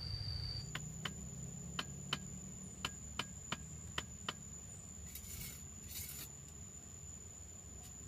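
A mason's trowel tapping concrete hollow blocks as they are laid, nine sharp taps over about four seconds, then two short scrapes of the trowel through mortar. A thin steady high whine runs under it, jumping higher in pitch just over half a second in.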